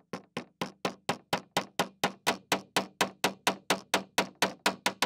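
Hammer tapping a blind-rivet mandrel through a washer into a pine block like a nail, in about twenty even strikes at roughly four a second, each with a short metallic ring. The first few blows are lighter.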